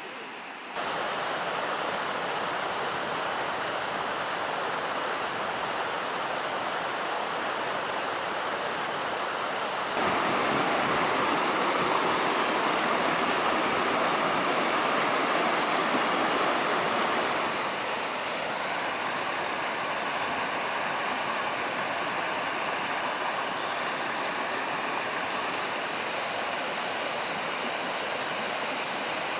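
Jaein Waterfall's falling water: a steady, dense rush. It jumps louder about a second in and again around ten seconds in, then drops back a little after about seventeen seconds.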